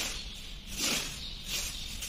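Rustling swishes of a homemade cat toy, a bunch of white strands tied to a fly swatter, swept through the air and down onto a tile floor: two main swishes about a second apart.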